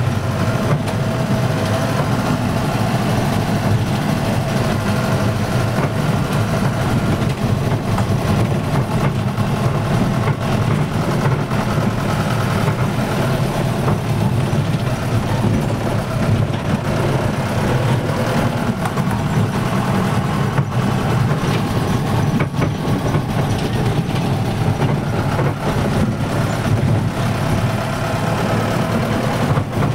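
A vehicle engine running steadily, with a continuous low rumble.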